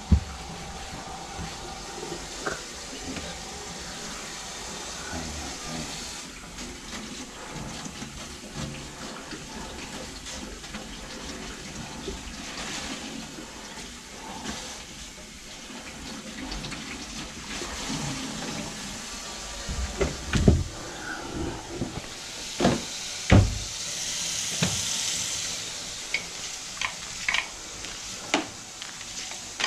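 Water pouring down from a kitchen sink drain under the basin. Several sharp knocks and clunks come in the second half.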